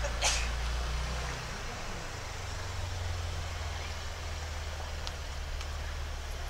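A motor vehicle's engine running with a low, steady rumble close by, and a short hiss just after the start.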